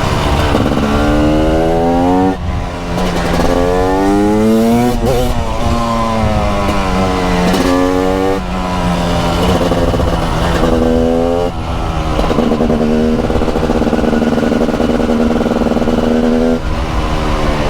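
TM SMR 300 supermoto's 300cc single-cylinder two-stroke engine pulling hard, its note rising in pitch and then dropping with each gear change, about four times in the first twelve seconds. After that it runs at a steadier pitch.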